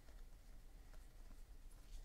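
Faint soft ticks and slides of cardboard trading cards being sorted by hand, one card moved from stack to stack.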